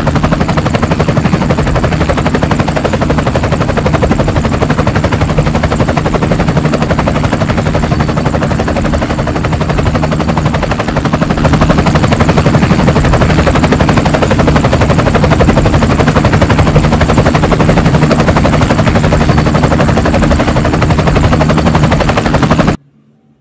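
Toy helicopter's electronic rotor sound: a loud, rapid, even chopping rattle with a thin steady whine over it, getting a little louder about halfway through and cutting off suddenly near the end.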